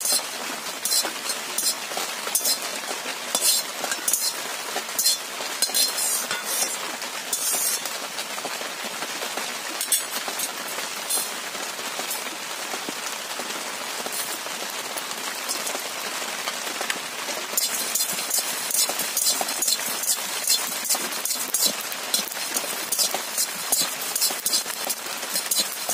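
Metal spatula scraping and stirring whole spices as they dry-roast in an aluminium kadai, the seeds and dried chillies rattling and clicking against the pan over a steady hiss. The clicks get denser and sharper about two-thirds of the way through.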